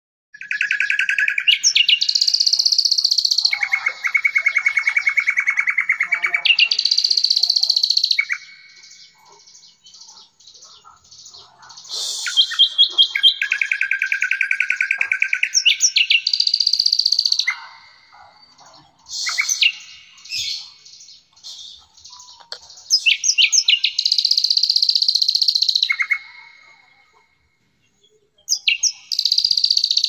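Recorded songbird song: long, very fast trills in phrases of a few seconds, switching between a lower and a higher pitch, with quieter gaps between phrases. It is a masteran recording, bird song played to caged songbirds to prompt them to sing.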